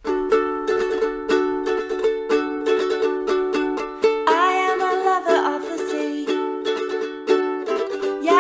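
Ukulele music: brisk, evenly strummed chords. A gliding pitched melody sound comes in over the strumming about four seconds in.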